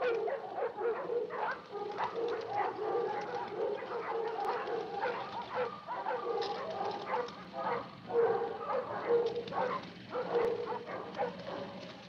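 Several dogs barking and yelping, their calls overlapping and going on without a pause.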